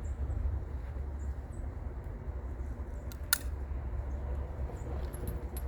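Steady low rumble, as of wind on an outdoor microphone, with one sharp click about three seconds in and a few faint ticks. No gunshot.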